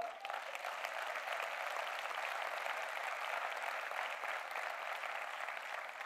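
A large audience applauding steadily, a dense even patter of many hands clapping that eases off slightly near the end.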